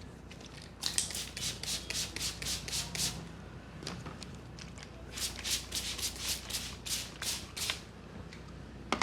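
Hands working a person's head and hair in a vigorous head massage: two runs of quick, evenly spaced strokes, about five a second, each lasting two to three seconds. A single sharp click comes near the end.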